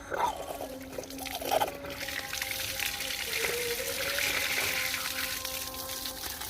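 Water running hard from the household plumbing: a steady rushing hiss that builds from about two seconds in, after a few knocks at the start.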